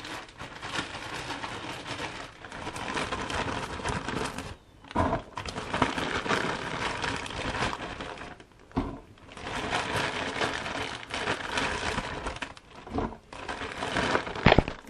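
Frozen chips sizzling in the hot oil of a deep fryer, a steady hiss that cuts out sharply a few times, with a few knocks.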